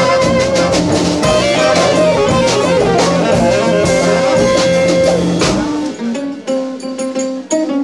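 Live band playing, with electric guitar over a drum kit. About five and a half seconds in the full band drops out, leaving sparser plucked guitar notes with light ticks.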